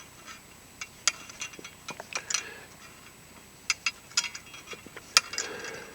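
Irregular sharp metal clicks and ticks from a snap ring expander tool being worked against a turbocharger compressor housing's heavily loaded snap ring.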